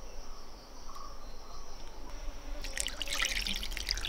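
Water poured from a pot into a small bowl, splashing, starting about two and a half seconds in and running on for about a second and a half.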